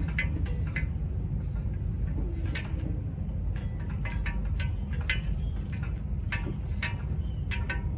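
Steady low rumble of outdoor street noise with many short sharp ticks, and a faint low drawn-out growl from a stray cat about two seconds in.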